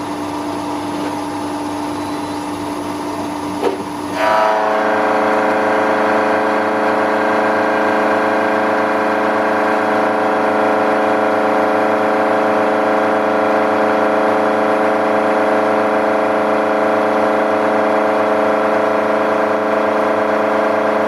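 Milling machine spindle turning a four-insert face mill at about 1600 rpm, and about four seconds in the cutter bites into the edge of a 1030 steel billet. It then cuts dry for the first 2.5 mm pass with a steady, louder ringing hum of several tones.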